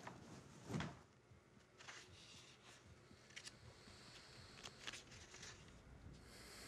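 Quiet room tone with a soft knock a little under a second in, then a few faint scattered rustles and clicks over a low hiss.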